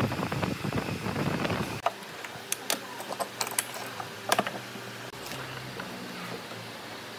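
A rough, dense noise for about the first two seconds, then a handful of sharp wooden clicks and knocks as small pieces of wood are handled and set down on a miter saw's table.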